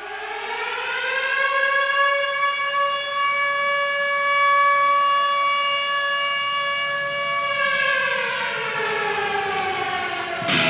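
A siren winds up to a steady wail, holds it for about five seconds, then winds down. Guitar music starts right at the end.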